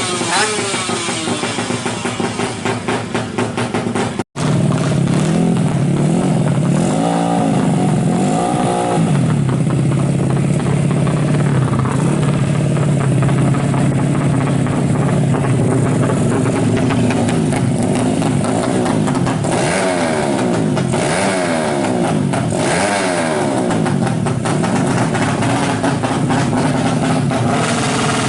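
Suzuki Smash motorcycle's single-cylinder four-stroke engine, bored up to 130cc and fitted with an AHRS exhaust, running and being revved up and down several times. The sound drops out briefly about four seconds in.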